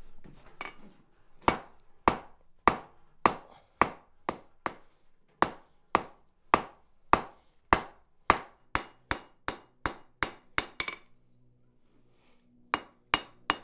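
Blacksmith's hand hammer striking a hot steel bar on an anvil in steady, ringing blows, about two a second and quickening. The blows round and clean up the bar's tapered end. They stop briefly near the end, then start again at a faster pace.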